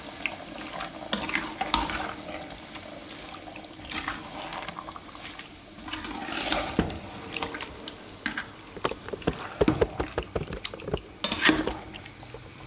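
Steel ladle stirring raw chicken pieces through a thick, wet onion-tomato masala in an aluminium pressure cooker. It makes wet mixing sounds with irregular clicks and scrapes of metal against the pot, busiest in the last few seconds.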